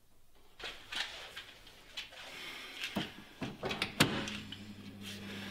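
A few sharp knocks and clicks, the loudest about four seconds in, after which a steady low hum sets in.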